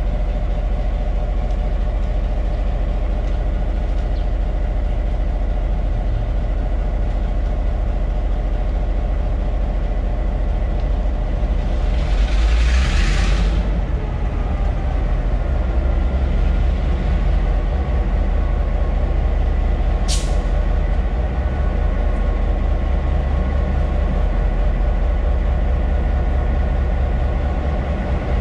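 EMD G12 diesel locomotives idling with a steady low rumble. About halfway through, a burst of compressed air hisses for a second or so, and a single sharp click follows some seconds later.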